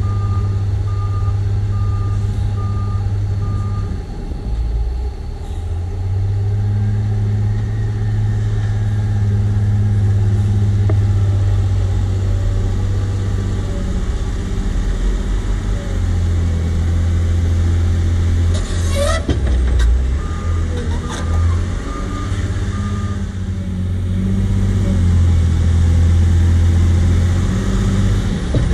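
JCB 436ZX wheel loader's Perkins 1006.6T six-cylinder turbo-diesel engine working under load, its pitch and level rising and falling as the machine pushes into the dirt pile and eases off. A reversing alarm beeps steadily at the start, again a little after two-thirds of the way through, and at the very end. A single sharp knock rings out about two-thirds of the way through.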